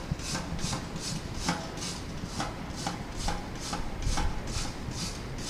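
Water spraying in rhythmic hissing spurts, about two a second, from a water fire extinguisher's hose nozzle onto a burning shirt to put it out. Wind noise on the microphone runs underneath.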